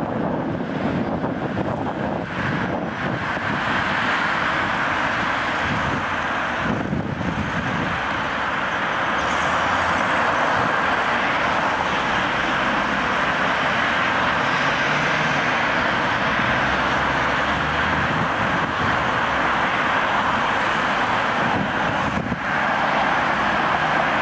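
Steady city road traffic noise, a continuous wash of passing vehicles with no distinct events.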